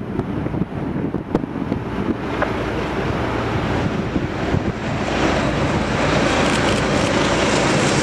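Diesel-hauled passenger train approaching on the track, its locomotive and wheel noise building steadily over the last few seconds, with wind buffeting the microphone.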